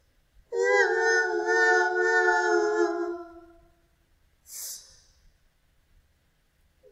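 A woman's drawn-out wailing cry, held on one pitch for about two and a half seconds and trailing off with a slight drop. About four and a half seconds in comes a short, sharp, breathy gasp, like a sob's intake of breath.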